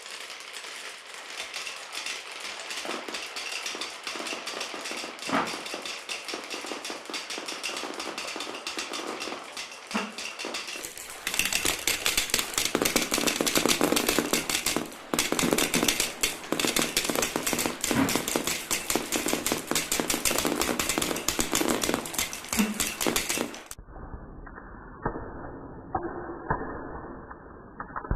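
Marbles clattering down a plastic marble-run track: a dense run of rapid clicks and rattles that gets louder and busier about eleven seconds in. Near the end the sound suddenly turns muffled.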